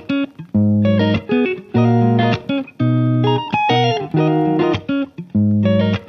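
Background music led by guitar, played in short chordal phrases with brief gaps between them.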